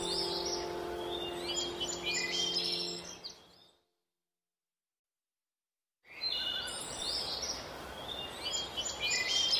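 Birdsong: many short chirps and whistles over a held music chord that fades away. The sound dies out completely for about two seconds midway, then the chirping fades back in.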